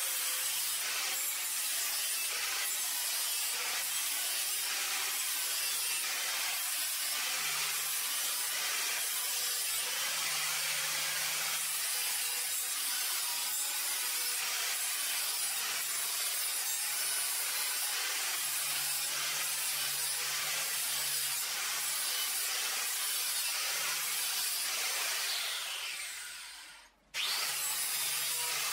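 Angle grinder disc grinding the bevel of a thin steel knife blade held in a sharpening jig, a steady abrasive hiss. It fades away near the end and then starts again abruptly.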